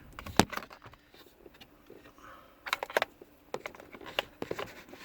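Plastic wiring-harness connectors clicking and rattling as they are plugged back into a car's climate-control switch panel: a sharp click about half a second in, then a few scattered clicks and light plastic handling.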